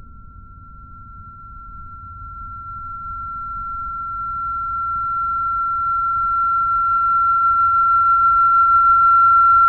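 A steady high-pitched ringing tone that swells from faint to loud and cuts off suddenly at the end, over a low rumble.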